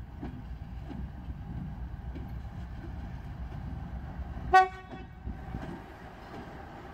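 Diesel locomotive approaching with a steady low engine rumble, giving one short horn toot about four and a half seconds in.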